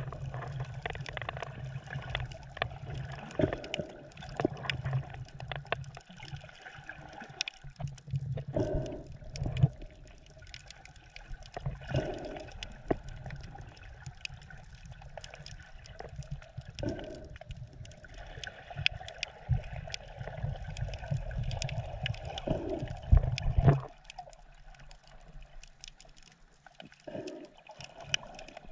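Shallow sea heard underwater: a muffled wash of moving water with a low rumble and many scattered sharp clicks and pops, turning quieter near the end.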